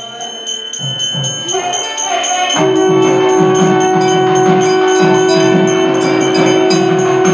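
Temple puja bells ringing rapidly and evenly over a repeating drum beat. From about two and a half seconds in, a conch shell joins with one long steady note.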